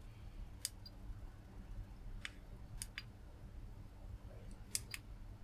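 Faint clicks of the push buttons on an S99 smart soldering iron as they are pressed to step into and through its settings menu: six short clicks, two of them in quick pairs, over a low steady hum.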